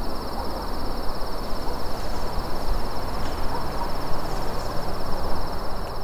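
The silence of an empty chapel recorded and turned up loud: an even hiss with a low rumble and a steady high-pitched whine.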